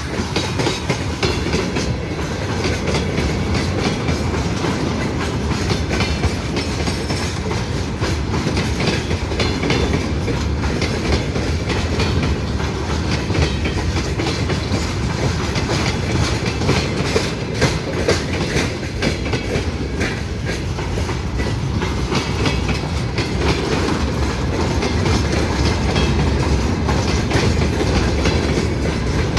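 A long train of railway cars rolling past, its wheels clacking steadily over the rail joints with a continuous rumble.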